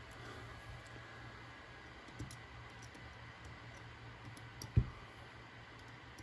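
Faint clicks and taps of small RC car parts and tools being handled on a workbench, with a sharper dull knock a little under five seconds in, like a part or tool set down on the bench.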